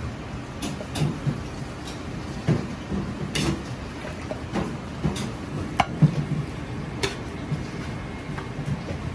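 Metal ladle scooping food in a steel wok, with irregular clanks and knocks against the pan over steady background noise.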